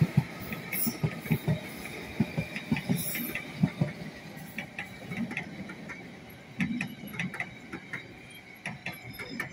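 Train wheels clattering over rail joints and points as trains move across the tracks: an irregular run of knocks and thumps over a steady rumble, with a faint steady whine.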